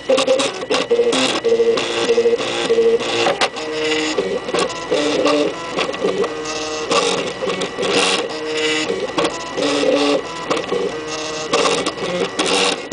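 MakerBot kit-built 3D printer printing, its stepper motors whining in steady tones that jump in pitch every fraction of a second as the axes change speed and direction, with scattered clicks from the moving mechanism.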